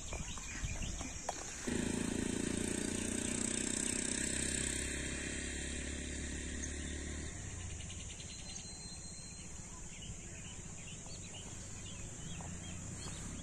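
Birds chirping over a steady high insect drone. A louder low hum starts suddenly about two seconds in and fades away by about seven seconds.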